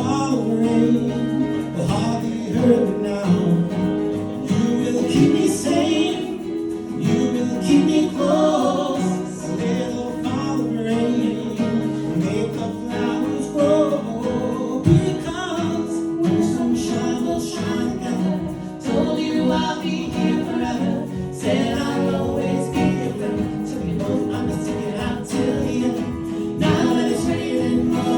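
Music: several voices singing together in harmony over acoustic guitar.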